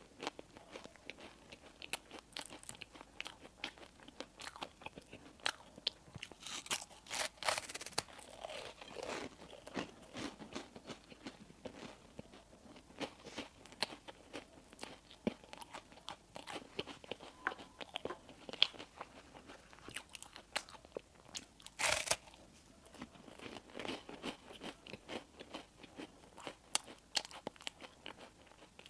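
Close-miked eating: a person biting and chewing bakery bread and pastry, a steady run of small crunchy bites and chews, with louder crunches about seven seconds in and again about twenty-two seconds in.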